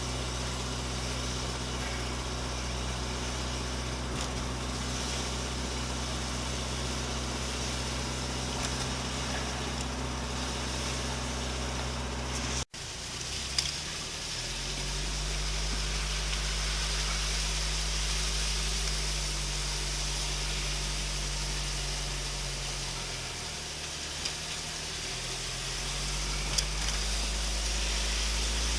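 Car engine running with road noise, heard as a steady low hum. After a brief cut about halfway through, the engine note settles at a different pitch, falls away a little and then rises again near the end, as the car slows and picks up speed.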